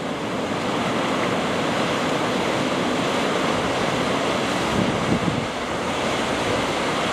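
Ocean surf breaking and washing over volcanic lava rocks: a steady, dense wash of water noise.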